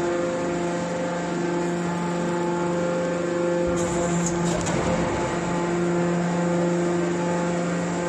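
Hydraulic metal scrap baler running, its hydraulic pump unit giving a steady hum while the ram pushes a compressed bale of metal turnings out of the side discharge. A short hiss and low rumble come about four seconds in.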